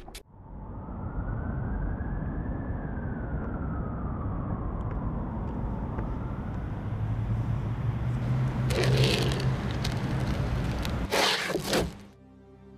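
A low, steady noise with a faint tone that slowly rises and then falls, broken near the end by two short, loud hissing bursts; soft ambient music comes in at the very end.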